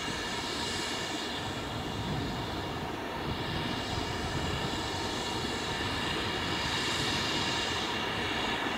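A BR Standard Class 4 4-6-0 steam locomotive working hard at the head of a cavalcade of coupled steam and diesel locomotives, a continuous heavy running noise that grows a little louder as the train approaches.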